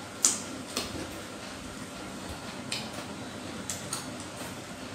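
Chopsticks tapping and scraping against small metal rice bowls while eating: a handful of short, sharp clicks spread unevenly over the few seconds, the loudest just after the start.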